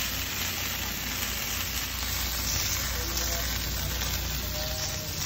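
Beef pieces sizzling steadily on a hot volcanic stone slab on a charcoal kettle grill, with tequila poured over them flambéing and burning off.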